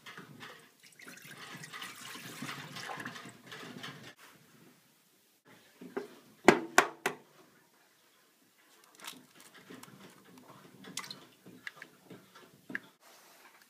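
Ingredients poured into a home bakery's bread pan, a steady hiss for about three seconds. Halfway through come two or three sharp knocks of an egg cracked against the pan, followed by small clicks and rustles of handling.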